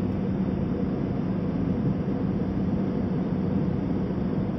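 Airliner cabin noise in flight: the steady drone of the jet engines and rushing airflow heard inside the passenger cabin, an even rush with a constant low hum and no change in level.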